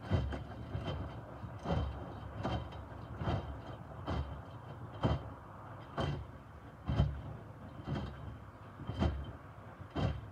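Miele W2573 front-loading washing machine in its main wash, the drum turning and lifting a load of wet microfiber cloths so they drop and splash back into the water about once a second, over a low steady motor and drum hum. The tumbling stops right at the end.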